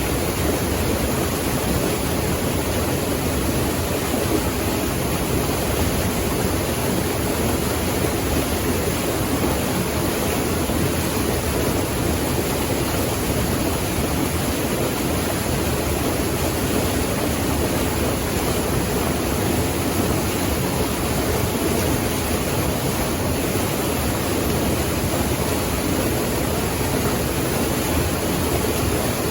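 Running water rushing steadily, an even hiss and roar that does not change.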